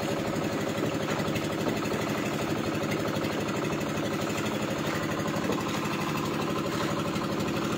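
A small wooden fishing boat's engine running steadily with a fast, even chug.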